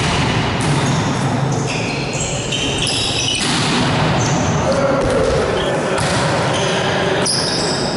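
Indoor volleyball rally heard in an echoing sports hall: the ball being struck, sneakers squeaking on the court floor and players' voices.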